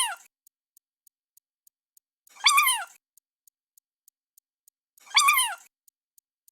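A cat meowing, the same short rising-then-falling meow repeated about every two and a half seconds, with faint, even ticking in the gaps.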